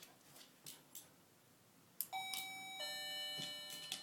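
Doorbell chime sounding a two-note ding-dong about two seconds in, the second, lower note ringing on. It is the cue that the hearing dog in training is meant to alert to.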